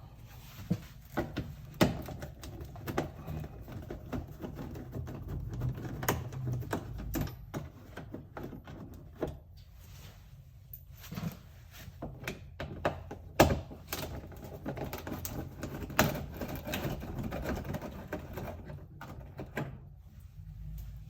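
Irregular clicks, taps and knocks of a hand tool working the plastic clamps and fasteners that hold a Dodge Charger's rear bumper diffuser, over a steady low rumble.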